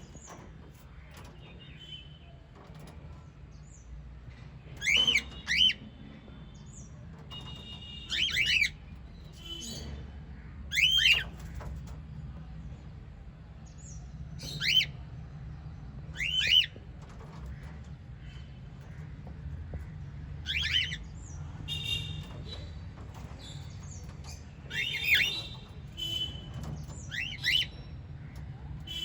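Small pet parrots calling: about ten loud, sharp chirps spaced a few seconds apart, with softer twittering between them over a low steady hum.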